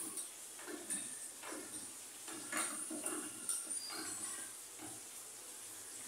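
A woman's short, effortful grunts and breaths, about two a second, as she works through an exercise.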